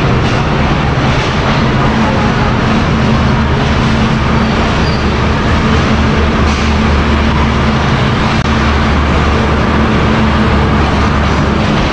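Diesel locomotive running steadily close by as a passenger train arrives, a loud, even engine drone with steady low tones.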